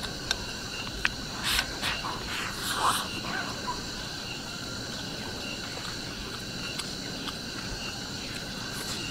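A person eating rice in soup from a bowl with chopsticks. There are two sharp chopstick clicks against the bowl early on, then a couple of seconds of slurping and chewing noises. Steady insect chirping runs underneath.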